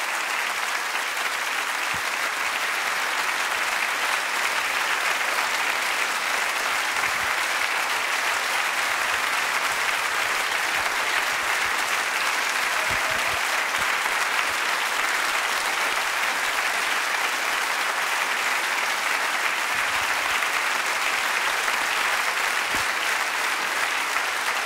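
A large audience clapping, with sustained, steady applause.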